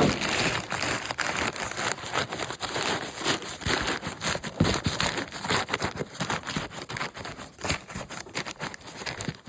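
Crinkle packing paper being torn off, wadded up and stuffed tightly into a cardboard box, a continuous irregular crackling and rustling.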